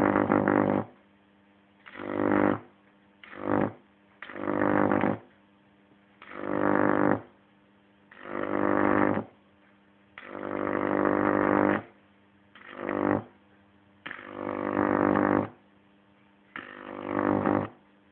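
Microwave oven transformer with a capacitor drawing high-voltage arcs of about 2.1 kV, switched on in about ten separate bursts of half a second to a second and a half. Each burst is a loud, harsh buzz over a strong mains hum, with silence between.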